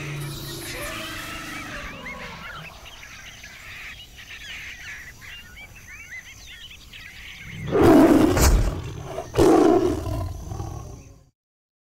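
Birds chirping and calling, then a tiger roaring twice, loud and deep, the second roar trailing off before the sound cuts off abruptly.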